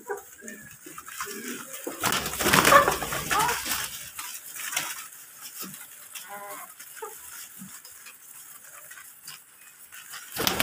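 Mixed flock of pigeons and domestic hens calling: scattered clucks and coos, with a louder rustling burst from about two to four seconds in.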